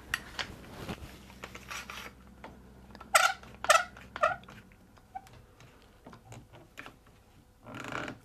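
Plastic and metal clicks and knocks of a one-handed bar clamp being fitted over a glued chair joint and ratcheted tight. Two short, squeaky sounds about three seconds in are the loudest part.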